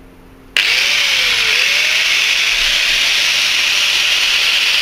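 Angle grinder with a thin 1.6 mm metal-cutting disc cutting into a hard, treated wooden railway sleeper. It is a loud, steady grinding whine that starts abruptly about half a second in.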